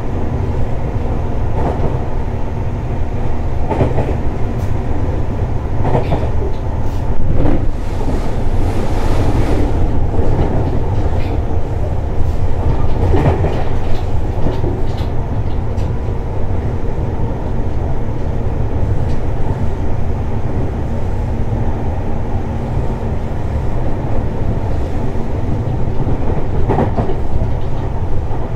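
Tobu 60000 series electric train running steadily, heard from inside the car: a continuous rumble of wheels on rail, with short clicks from rail joints here and there.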